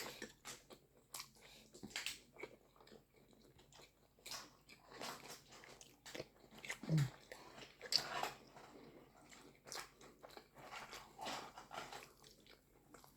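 Close-up eating sounds: biting and chewing butter chicken with paratha, with irregular wet mouth clicks and smacks.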